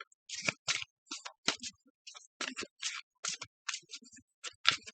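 Tarot cards being handled and shuffled by hand: a quick, irregular run of short papery flicks and snaps, about two or three a second.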